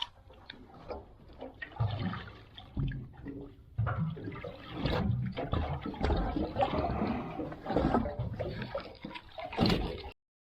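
Water sloshing and splashing in uneven surges, cutting off abruptly near the end.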